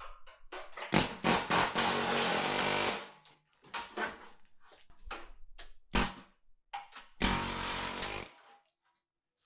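Power drill running in two bursts, about two seconds then about a second, drilling into the steel of a car's front crossmember, with short clicks and knocks between.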